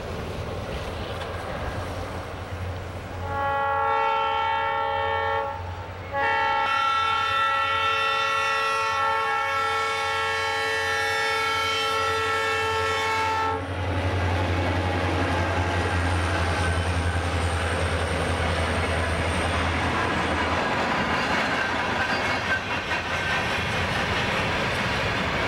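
Illinois Central diesel freight locomotives sounding their air horn, a short blast about three seconds in, then after a brief break a long blast of about seven seconds. The train then passes close by: the locomotives' engine rumble swells, followed by the freight cars rolling past with wheels clicking over the rail joints.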